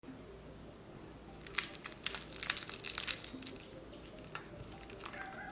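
A crispy leftover-rice dosa being torn apart by hand: a run of sharp crackles and crunches, thickest from about one and a half to three seconds in, with a few scattered cracks after.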